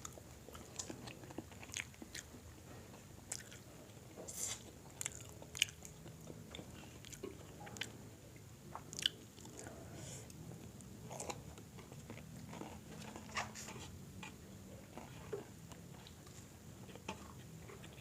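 Close-up mukbang eating sounds: a person biting and chewing crispy fried chicken, with irregular small crunches and wet mouth clicks.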